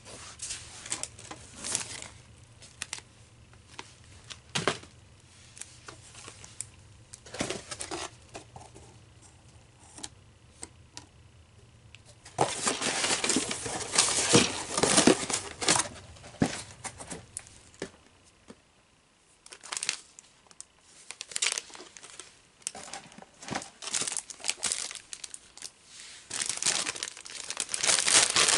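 Plastic mailer bag and packaging crinkling and rustling in irregular bursts as it is handled and torn open. There is a louder stretch about twelve seconds in and again near the end.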